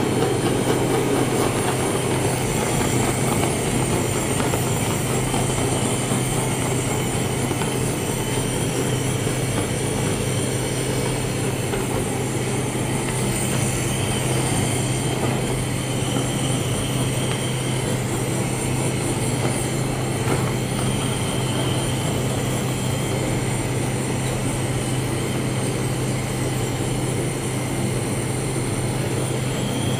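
Handheld gas blowtorch burning steadily, its flame a continuous hiss as it browns Italian meringue, over a steady low hum.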